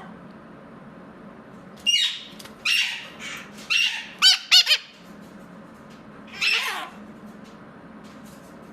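Mitred conure calling: a run of loud, high-pitched squawks and squeaks that bend in pitch from about two to five seconds in, the loudest two close together, then one more call a little later.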